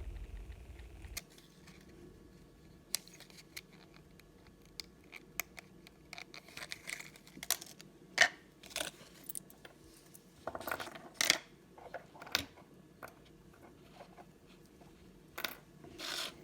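Small diecast model-car parts and wheels being handled on a work surface: scattered small clicks and taps, with a few brief rustles and a dull bump about a second in.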